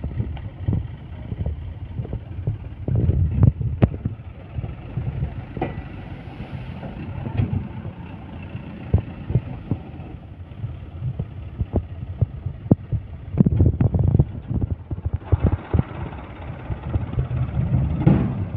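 Dump truck's diesel engine running steadily while its raised tipper body unloads sand and then starts to lower near the end. Irregular sharp knocks and thumps are scattered throughout.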